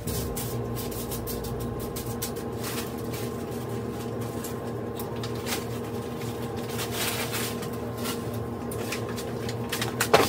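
Kitchen sounds: a steady low hum runs under scattered light clicks and rustles of utensils and containers being handled.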